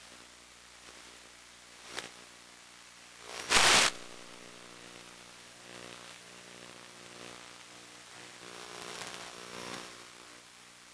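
Static on an analog FPV video link's audio: a steady hiss with a faint hum, a sharp click about two seconds in, a loud burst of crackling static just before four seconds, and rougher static near the end.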